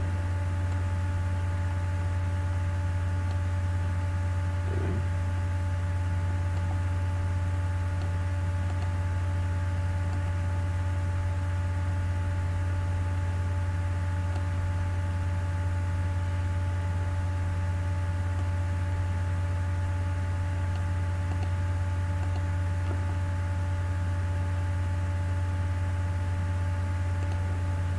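Steady low electrical hum with a few fainter steady tones above it and light hiss, unchanging throughout.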